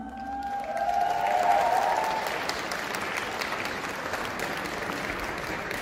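Audience applauding, building up about a second in and then slowly dying down.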